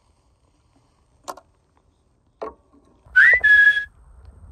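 A short whistle that rises and then holds one note for about half a second, preceded by two faint taps.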